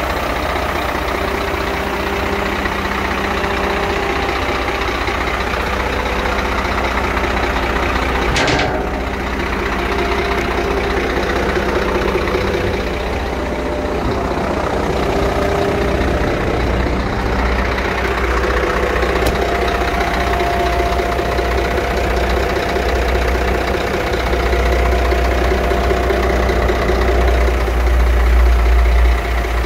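Scania P114 truck's 11-litre six-cylinder diesel idling steadily, growing louder and deeper in the last few seconds. A brief sharp swish cuts across it about eight seconds in.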